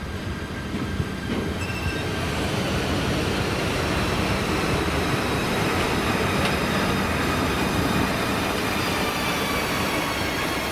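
An SBB Ae 6/6 electric locomotive running slowly past at close range. Its rumble grows louder as it draws level, with several thin, steady high whining tones above it.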